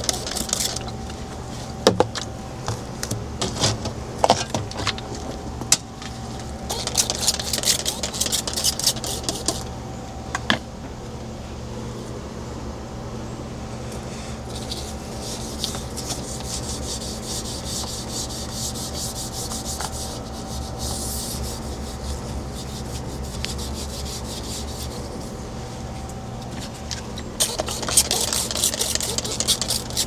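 Hand scrubbing on a refrigerator's surfaces, as a stained fridge is cleaned: repeated bouts of rubbing strokes, with a few sharp knocks in the first several seconds. A steady low hum runs underneath.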